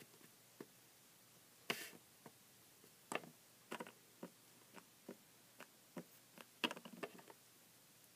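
Faint, scattered taps and clicks of small objects being handled on a surface. There is a short rustle about two seconds in and a quick cluster of taps near the end.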